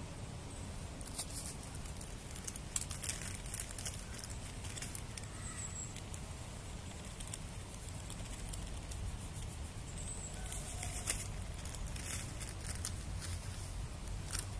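A small plastic zip bag rustling and crinkling as it is handled and poured from, in scattered clusters of short crackles, over a steady low rumble.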